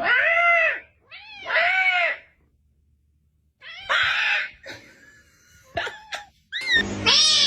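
A domestic cat meowing twice, two long drawn-out meows that rise and fall in pitch. A short noisy burst and a couple of clicks follow, and music comes in near the end.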